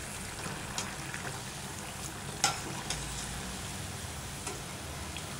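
Masala vadas (chana dal fritters) deep-frying in hot oil in a steel kadai, a steady sizzle at the golden-brown, done stage. A few light metallic clicks from the wire skimmer against the pan as the vadas are lifted out, the sharpest about two and a half seconds in.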